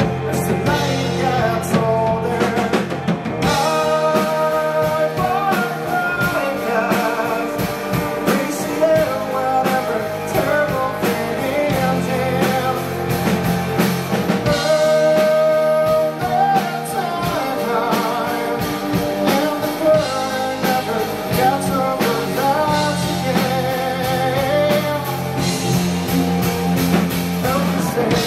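Live rock band playing: a man singing over electric guitar and a drum kit.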